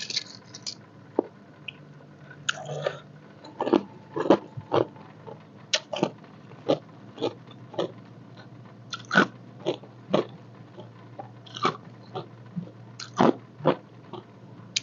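Ice cubes being bitten and chewed, with sharp, irregular crunches about once a second over a faint steady low hum.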